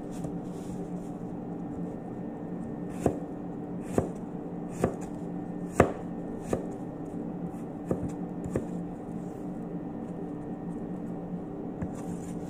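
Kitchen knife slicing a red apple on a cutting board: the blade knocks on the board in irregular chops, about one a second from about three seconds in, over a steady low hum.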